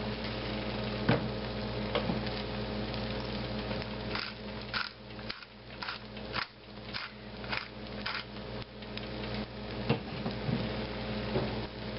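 Metal pepper grinder being worked over a frying pan: a run of short scratchy grinding strokes, about two a second, from about four seconds in until about nine seconds in. A few light clicks come before it.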